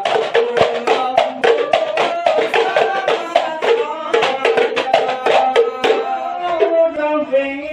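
Hadrah frame drums beaten in a fast, steady rhythm under a group of men's voices chanting a devotional song. About six seconds in the drumming thins out and the voices carry on, sliding between notes.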